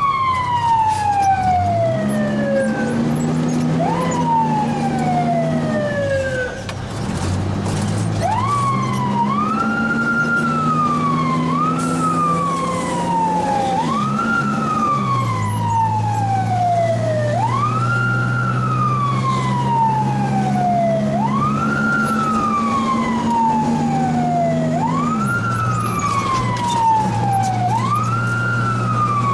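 Fire truck's mechanical siren wound up and left to coast down over and over, each wail rising quickly and falling away slowly, about every three to four seconds, heard from inside the cab. Under it the truck's diesel engine climbs in pitch and drops back as the automatic transmission changes gear.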